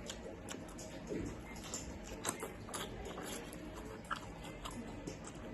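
Close-up chewing and biting of chicken and rice: irregular wet clicks and smacks from the mouth, a few louder ones, over a low steady background hum.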